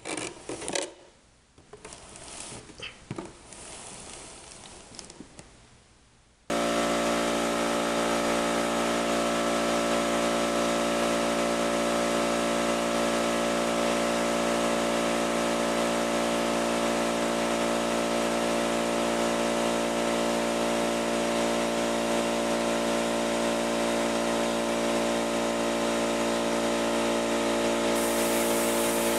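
Light tapping and rubbing from handling for the first few seconds. About six seconds in, a steady electric motor hum with an even hiss starts abruptly and runs on unchanged: spray booth machinery running.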